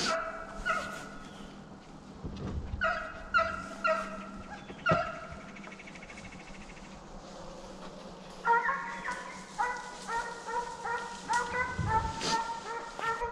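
A pack of deer hounds baying and barking in short, repeated calls while running a deer. The calls come sparsely at first, then thicken into a steady chorus of overlapping voices from about eight seconds in.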